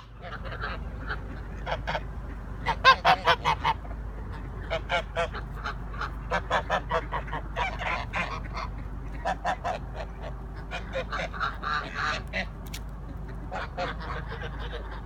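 A flock of domestic geese honking at close range: short, repeated calls, with a quick run of about six calls around three seconds in and scattered honks throughout.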